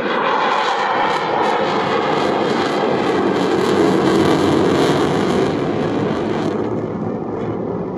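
RAF Eurofighter Typhoon's twin EJ200 turbofans running in afterburner on a display pass. It is a loud jet noise that builds to a peak about halfway through, then fades, its high end dropping away near the end as the jet pulls away.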